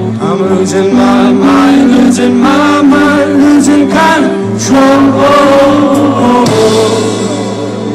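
Rock band playing live, with a sung melody over steady bass and guitar notes; the singing stops about six and a half seconds in and the band plays on.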